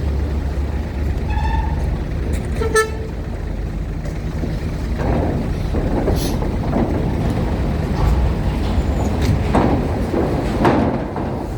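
Engines of trucks and buses running steadily, with two short horn toots, about a second and a half and three seconds in. Several swells of hissing noise follow in the second half.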